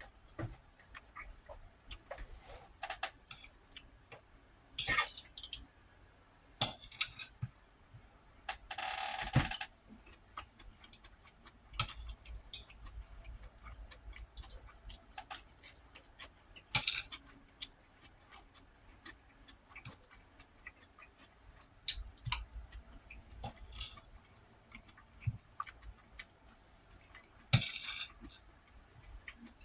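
Close-miked eating: chewing with many irregular wet mouth clicks. There is a longer noisy burst about nine seconds in and shorter ones around five and twenty-eight seconds.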